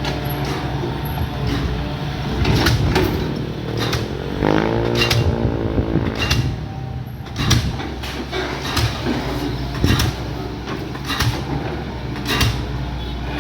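Excavator's diesel engine running steadily, with repeated sharp metal clanks and knocks. A brief wavering pitched whine rises and falls about four to six seconds in.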